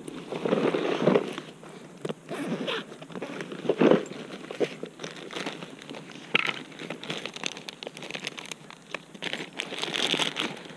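Zipper and rustling of a fabric bag being opened and rummaged through, in irregular bursts with crinkling and small clicks, loudest about a second in and again near four seconds.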